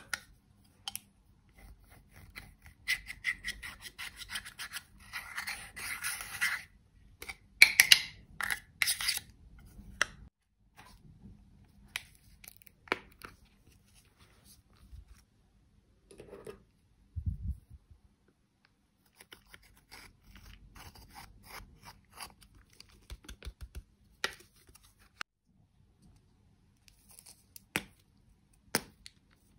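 Plastic makeup cases handled close up, with sharp clicks of cases and lids, and long bouts of fine scratching as a metal pick digs pressed eyeshadow out of its pan; the scratching is densest and loudest a few seconds in.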